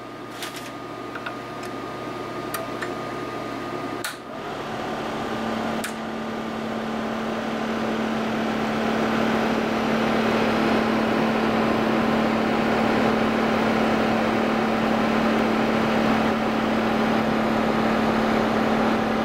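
Electric blower fan starting: a few light clicks, then a click about four seconds in, after which a steady low hum sets in and the rushing air noise builds over several seconds and holds steady.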